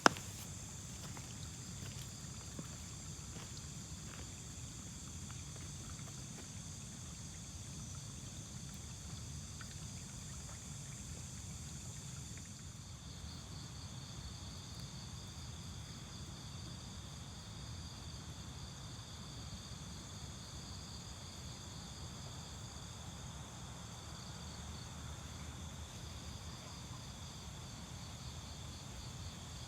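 Night insects chirring in a steady chorus of several high pitches over a low rumble, with a sharp click right at the start. About twelve seconds in, the highest voice of the chorus fades and a pulsing one takes over.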